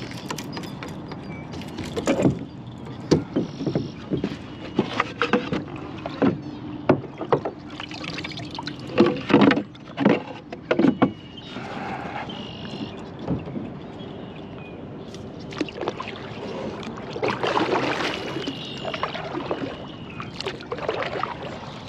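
Kayak moving through shallow water: water splashing and sloshing around the hull with irregular knocks and clunks.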